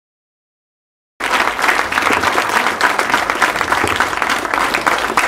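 Silence, then an audience applauding, cutting in abruptly about a second in and continuing as a dense, steady clapping.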